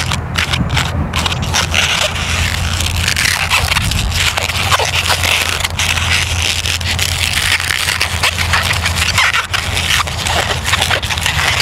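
Long latex modelling balloon being twisted into bubbles by hand: the rubber rubbing and squeaking again and again, over a steady low rumble.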